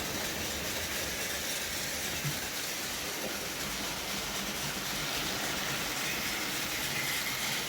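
OO gauge model trains running on the layout: a steady whirr of small electric motors and wheels rolling on the track.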